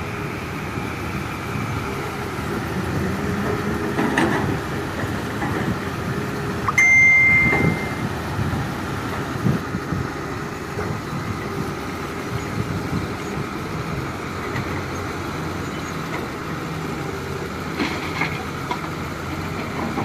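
Heavy diesel construction machinery running steadily, with a short high-pitched tone sounding about seven seconds in.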